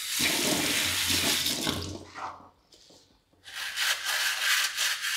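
Tap water running into a stainless steel sink, stopping briefly a little after two seconds in and then running again. In the second part, a metal tea strainer is being rubbed clean under the stream.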